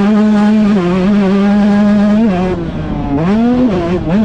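Husqvarna TC125 125cc single-cylinder two-stroke motocross engine held at high revs for about two seconds, then dropping and swooping up and down twice in quick throttle blips near the end.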